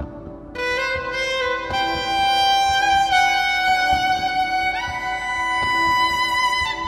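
Solo violin bowed in long sustained notes, entering about half a second in and stepping up to a higher note near the five-second mark, over a soft pulsing drone; the notes drop away just before the end.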